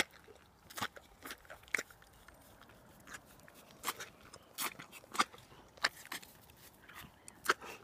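A pony biting into and chewing a piece of apple: a string of sharp, irregular crunches, roughly one every half second.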